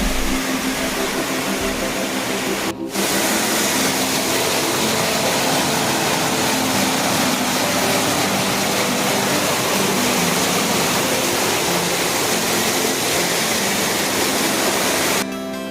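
Steady rush of a large waterfall, with soft background music underneath. The water sound breaks off briefly about three seconds in and stops near the end, leaving only the music.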